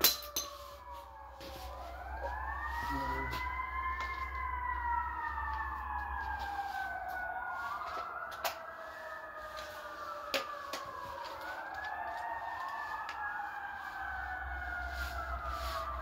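Emergency vehicle sirens wailing, several overlapping, each rising and falling every four to five seconds, over a low steady hum. A few sharp clicks, the loudest right at the start.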